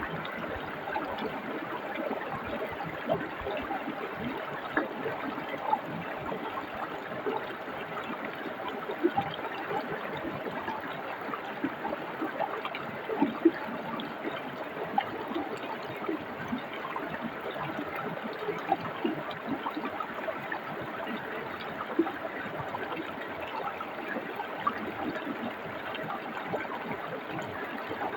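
Forest brook flowing: a steady rush of water with many small splashes and gurgles throughout.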